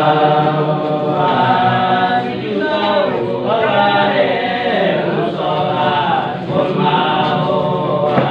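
A small group of young men singing a Christian praise song a cappella in the Nduga language, several voices together in long, held phrases.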